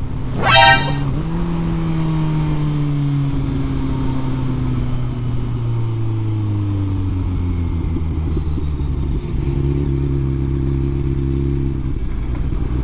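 Motorcycle inline-four engine of a Kawasaki Z900 SE: a quick, loud rev rising in pitch just under a second in, then the engine note falling slowly as the bike rolls off and slows, settling into a steady lower note for the last few seconds.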